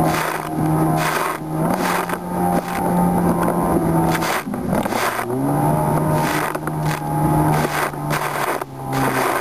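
Jet ski engine running at speed over choppy water, heard from inside a waterproof camera box, with repeated hull slaps on the waves and spray hitting. The engine note drops briefly about halfway through, then picks up again.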